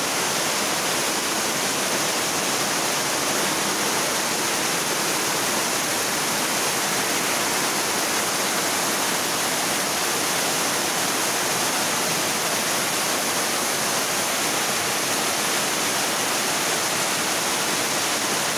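Heavy tropical-storm rain pouring steadily onto the ground and puddles, with water running off a roof edge; an even, unbroken downpour.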